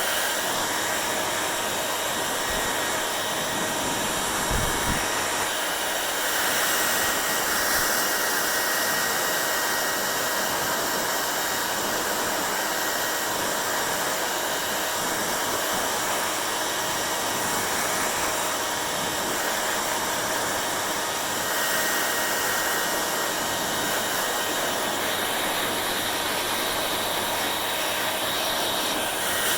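Hair dryer running steadily, a continuous blowing rush of air with a faint steady whine in it.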